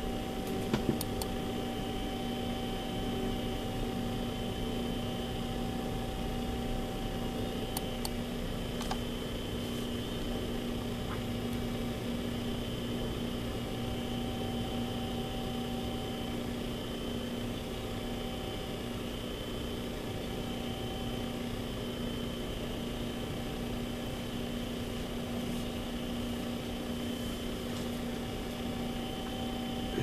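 Steady electrical hum and hiss with a few faint clicks in the first ten seconds.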